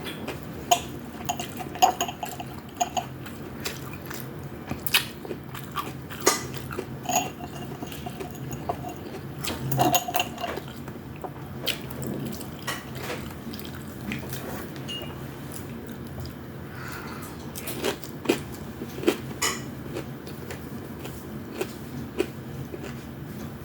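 People eating at a table: chewing and mouth sounds with scattered sharp clicks of spoons and utensils on plates, over a low steady hum.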